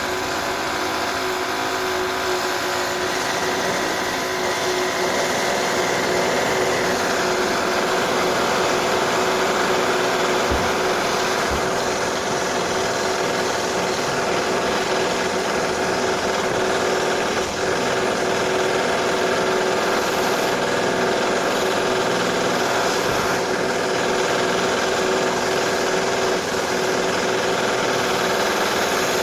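Power drill of renovation work running steadily without a break, a continuous mechanical whine; the upper part of the tone shifts slightly about six or seven seconds in.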